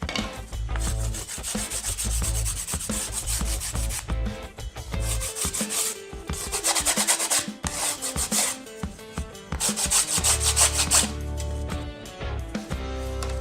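Wood being rubbed with an abrasive in quick back-and-forth strokes, in several separate runs, like hand sanding, with background music underneath.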